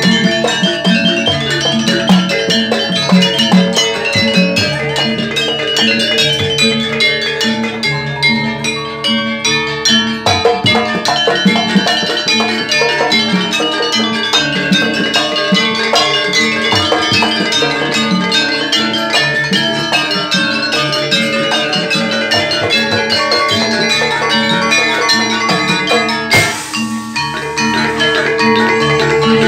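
Javanese Jaranan gamelan ensemble playing: driving kendang hand-drum strokes over ringing metallophones and gongs, with a short break near the end before the music picks up again.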